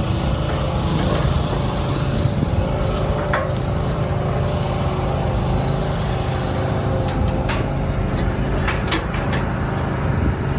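An engine running steadily with a low, even drone, with a few sharp clicks in the second half.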